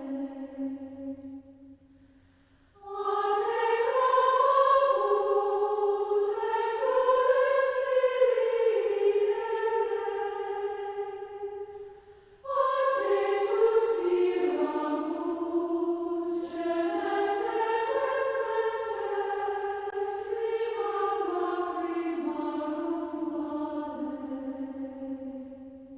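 Choir singing a slow Marian hymn in long sustained phrases. A held note fades out, and after a pause of about a second two long phrases follow, with a short break between them about halfway. The last phrase dies away near the end.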